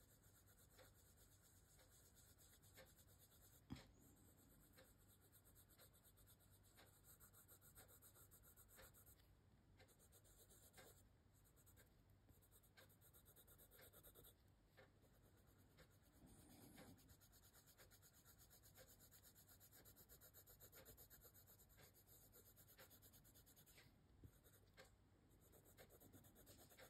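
Faint scratching of a coloured pencil stroking over paper in short repeated strokes, laying a pale pink layer over darker colours to blend them. A single small click a little under four seconds in.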